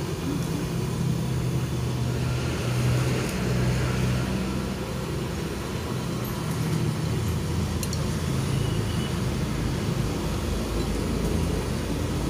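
Road traffic passing close by: a steady low hum of vehicle engines and tyres that swells and eases as vehicles go past.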